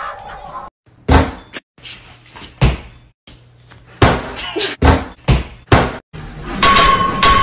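Kitchen cabinet doors slamming: a series of sharp, loud bangs, about seven of them over five seconds. Music starts near the end.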